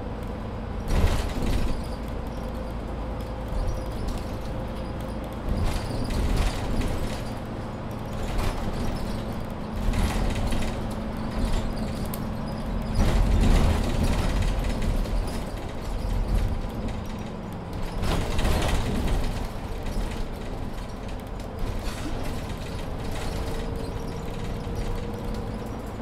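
Mercedes-Benz Citaro C2 Ü hybrid city bus driving, heard from inside the cabin. The drivetrain with its Voith automatic gearbox gives a low rumble and a steady hum, while interior fittings click and knock now and then.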